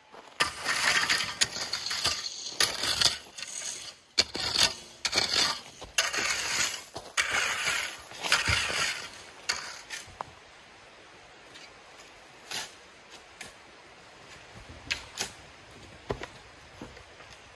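A metal rake dragging through gravel in repeated crunching, clinking strokes, loudest for the first ten seconds or so. After that it goes much quieter, with a few scattered faint knocks.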